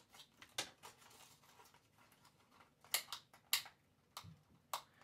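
Quiet handling of a diecast model car's packaging: scattered sharp plastic clicks and light rustling, the loudest clicks about three seconds in, as the car is worked out of its box.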